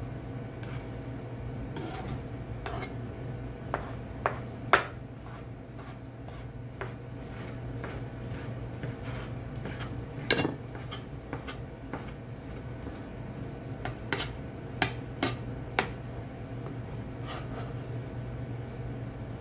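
Kitchen knife knocking on a plastic cutting board in irregular, separate clicks as a thin egg omelette is sliced into strips, the sharpest knocks about five and ten seconds in and a quick cluster near the end. A steady low hum runs underneath.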